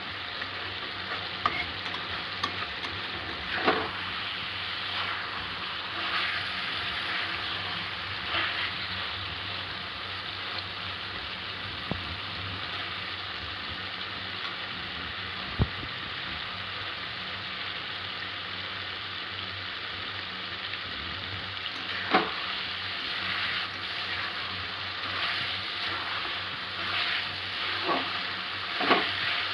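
Thick chicken masala sizzling steadily in a stainless steel kadai while a spatula stirs and scrapes it, with a sharp knock of the spatula against the pan now and then.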